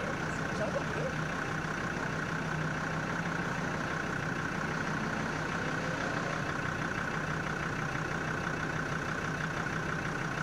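Land Rover Defender's Td5 five-cylinder turbodiesel idling steadily.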